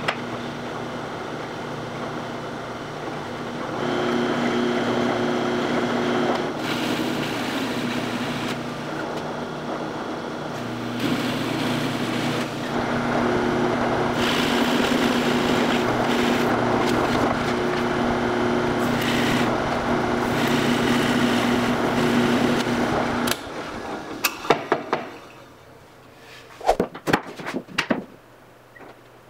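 Benchtop drill press running with a steady motor hum while a Forstner bit bores holes in plywood, the cutting noise swelling and easing with each hole. The motor stops near the end, followed by a few sharp knocks and clacks of wood being handled.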